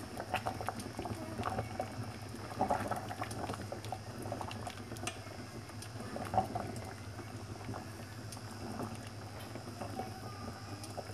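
Water at a rolling boil in a pot, bubbling steadily while pork belly blanches in it, with a few light clicks and knocks from chopsticks turning the meat against the pot.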